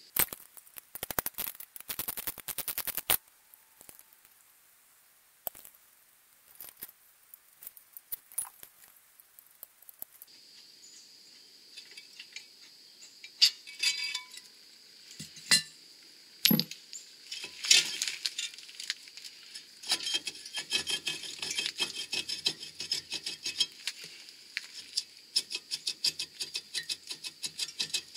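A ratchet wrench clicks in fast runs as brake caliper bracket bolts are spun out, near the start and again through the last third. Sharp metal clinks and knocks come in between as the bolts and bracket are handled.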